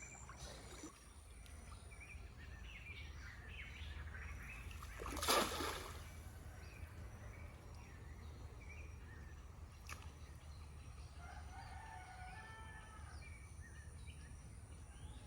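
Farmyard chickens, with a rooster crowing faintly and small birds chirping, over a steady low rumble. A brief loud rush of noise about five seconds in.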